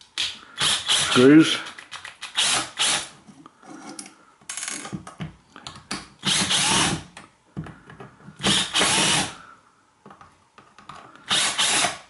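A Pozidriv screwdriver turning out the screws of a plastic electric-shower pressure-switch and valve housing, heard as about six short bursts of grating, each under a second.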